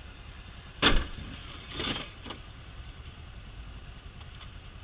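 Steady rumble of a motorcycle moving through slow traffic, cut by a sharp bang a little under a second in, a rougher bang about a second later and a small knock just after.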